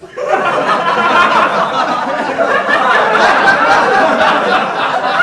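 Studio audience laughter from a laugh track, many people laughing together, starting abruptly just after the start and carrying on loud and steady.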